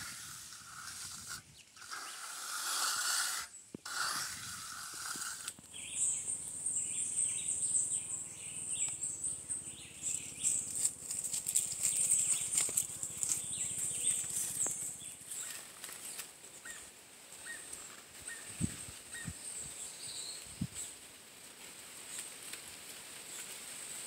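Outdoor ambience with a steady, high-pitched insect drone, pulsing slightly, plus a few faint scattered clicks. A stretch of hiss fills the first few seconds before the drone begins.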